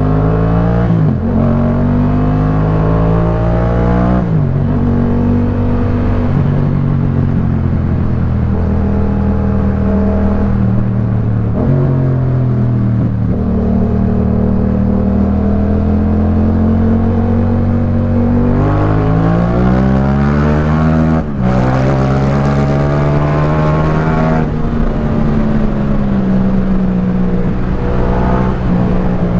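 Yamaha MT-07's 689 cc parallel-twin engine breathing through a Jeskap K4 full aftermarket exhaust, ridden through the gears. Revs climb and drop at upshifts about a second in and about four seconds in, hold steady for several seconds, fall back, then rise hard again with another upshift around three-quarters of the way through before easing off.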